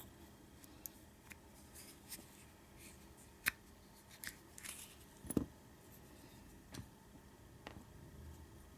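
Faint, scattered clicks and taps of small metal lock parts being handled as a Schlage deadbolt cylinder is taken apart for rekeying, with a plug follower in use. Two sharper clicks stand out, about three and a half and five and a half seconds in.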